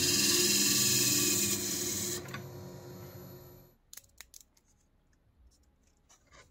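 Record Power wood lathe running with a steel rod held against a spinning wooden knob: a loud, steady rubbing hiss over the motor's hum. About two seconds in the hiss stops and the lathe winds down, fading out a couple of seconds later. After that come a few faint clicks of the glue tube being handled.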